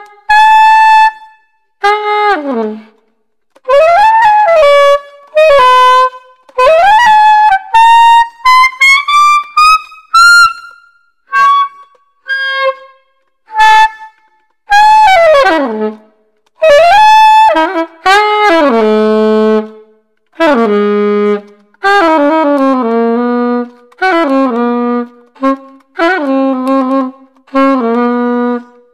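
Selmer Mark VI soprano saxophone being play-tested after a clean and repair: short phrases with brief pauses between them, several notes scooping and gliding up or down in pitch. Toward the second half the phrases drop to shorter notes in the horn's low range.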